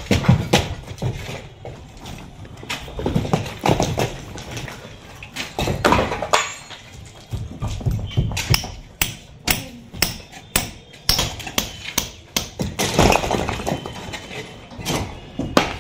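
Heavy sledgehammer blows on a brick wall being demolished, knocking bricks loose. The strikes come unevenly, with a quick run of about three blows a second in the middle.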